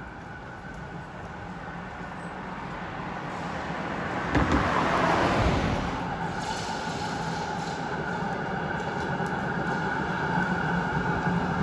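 A Melbourne tram approaching along the street, its running hum growing steadily louder toward the end. About four seconds in, a car passes close by with a loud, brief tyre whoosh that falls in pitch.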